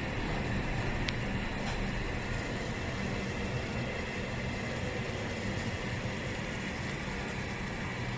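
A pot of water and Chinese herbs coming to a full boil on a stove on high heat: a steady rushing noise with a low hum underneath, and a faint click about a second in.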